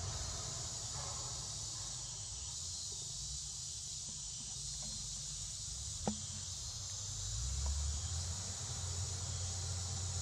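Steady high-pitched drone of insects in the forest undergrowth, over a low rumble, with a single sharp click about six seconds in.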